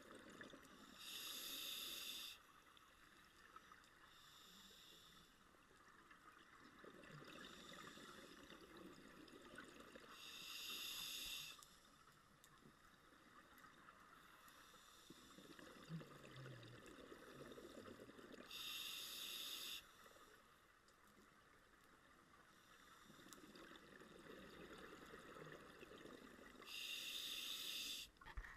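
A diver's scuba regulator breathing underwater: four slow breaths about eight seconds apart, each a short hiss of inhaling through the demand valve, and between them a longer, lower bubbling of exhaled air that runs straight into the next hiss.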